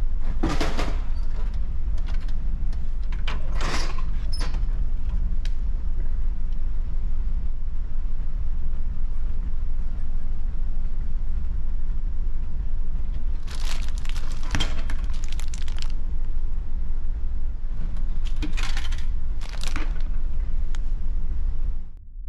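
Steady low drone of the ferry's engines, with short clattering knocks from vending machines: a can dropping into the tray just after a button press, then, about fourteen seconds in, a stretch of clatter as a snack bag is dispensed, and knocks near the end as it is pulled out through the flap.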